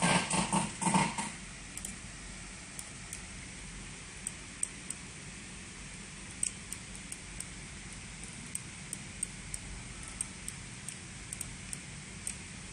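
Sparse, irregular small sharp clicks from a computer mouse over a steady low hum. A few louder noises come in the first second.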